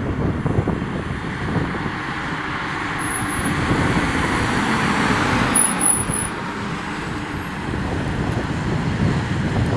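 Iveco Daily fire engine driving past without its siren: engine and tyre noise swells to a peak about halfway through and eases as it goes away.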